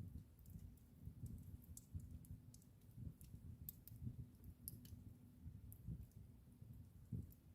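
Wood fire in a fireplace crackling, faint: irregular sharp pops and snaps, several a second, over a low rumble.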